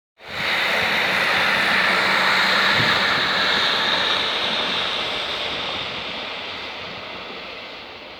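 A train passing at speed, with a loud, steady rush of wheel and rail noise that fades gradually over the last few seconds as it moves away.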